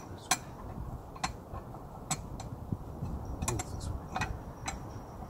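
Irregular light metal clicks and taps as a lawn spreader's tubular metal frame, brackets and bolts are handled and fitted together by hand. There are about eight clicks, the sharpest about a third of a second in.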